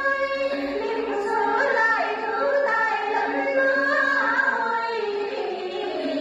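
Group of Tày women singing a then song together in one melodic line, with held, gliding notes, accompanied by đàn tính long-necked gourd lutes.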